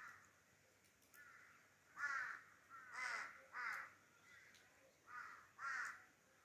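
Crows cawing, a series of about seven harsh calls, some in quick pairs.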